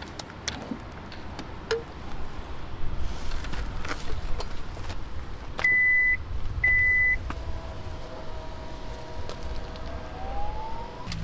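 Two short electronic beeps, each about half a second long and at the same high pitch, over a low background rumble with scattered clicks; near the end a faint steady tone sounds and another rises in pitch.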